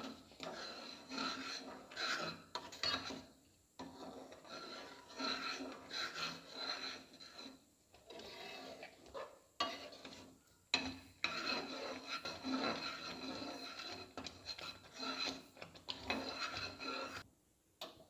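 Steel spoon scraping and stirring around a metal pan as semolina cooks in boiling water and thickens, in repeated strokes with short pauses.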